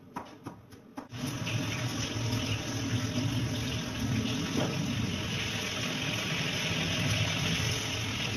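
A few knife chops on a wooden cutting board, then from about a second in a steady rushing, watery noise.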